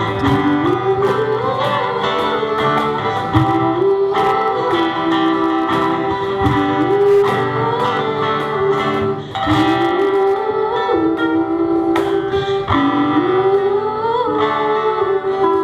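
Live band music from guitars, with a melody line that rises and settles again about every three seconds over sustained chords and light drum strokes.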